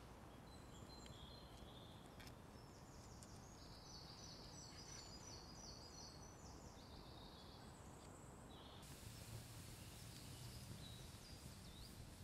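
Faint birdsong: quick, repeated trilled phrases from small songbirds, with a few light clicks.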